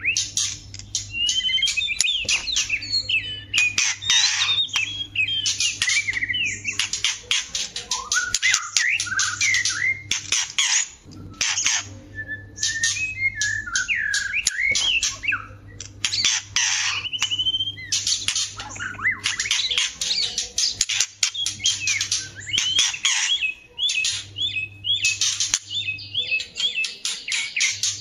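White-rumped shamas, female and male, singing together: a fast, nearly unbroken stream of harsh chattering notes mixed with gliding whistles.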